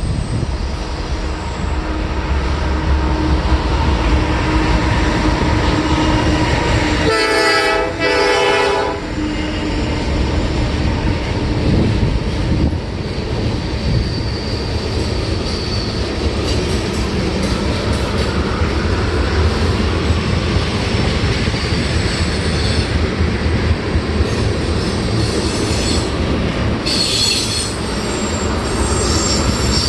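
Freight train's multi-chime air horn sounding a chord in two blasts of about a second each, over the steady rumble of the train rolling past. Wheels squeal against the rail near the end.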